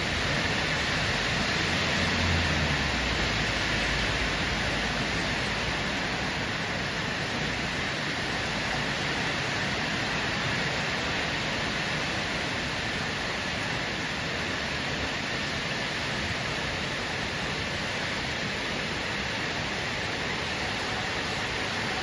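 Heavy rain pouring steadily, a dense, even hiss. A low rumble fades out in the first few seconds.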